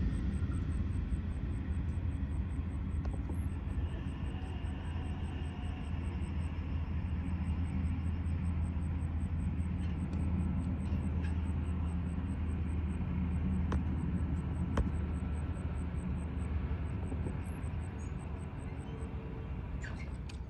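Steady low rumble of a moving vehicle, with a few faint clicks, cutting off abruptly at the end.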